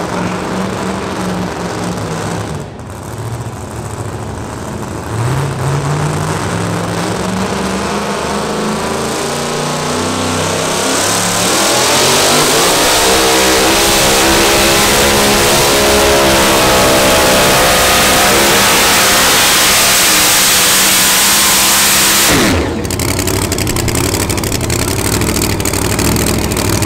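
Super modified two-wheel-drive pulling truck's engine revving up as it drags a weight-transfer sled, climbing in pitch and then held at full throttle for about ten seconds. Near the end the throttle is cut abruptly, the pitch drops, and the engine carries on running at a lower note.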